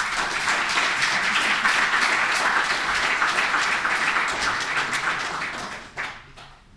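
Audience applauding: many hands clapping together, dying away about six seconds in.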